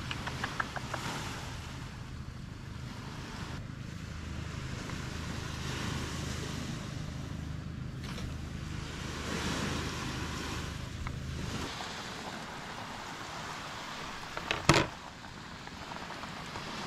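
Small waves washing onto a sandy beach, with a steady low motor hum under them that cuts off about two-thirds of the way through. Near the end comes one sharp knock, the loudest sound.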